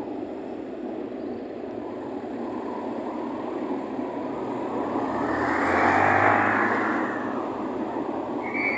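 Motor engine noise: a steady rumble that swells louder about six seconds in and then eases back.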